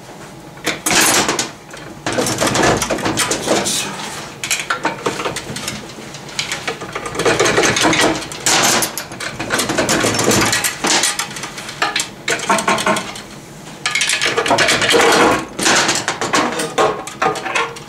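Metal tools scraping, prying and clinking against the cast aluminium case of a Subaru Lineartronic TR690 CVT as the case halves are worked apart at the dowel pins. Irregular runs of metallic clanks and scrapes, with short pauses between them.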